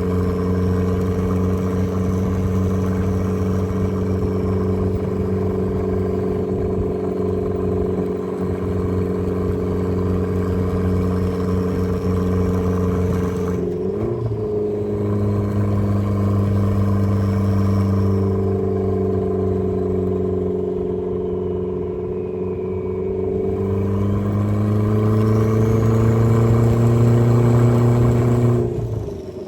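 Turbocharged Mazda Miata four-cylinder engine running steadily under way, heard from inside the car. It breaks off briefly for a gear change about fourteen seconds in. Later the revs climb, and near the end the throttle lifts.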